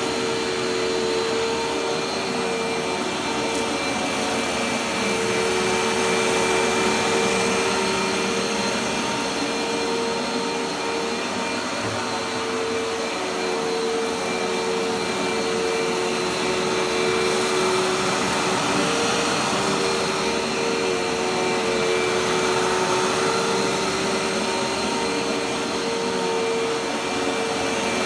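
Dirt Devil Dash vacuum cleaner running continuously as it picks up shredded paper from the floor: a steady motor whine over rushing air that wavers slightly in pitch.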